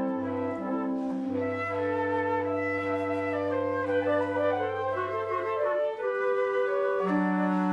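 Military concert band playing: flute and other woodwind lines move over a long held bass note, and fuller chords come back in near the end.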